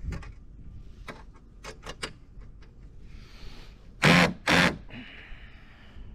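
19.2-volt cordless drill tightening the fastener on a rod holder base: a few light clicks, then two short loud bursts from the drill about four seconds in, followed by a fainter steady whine.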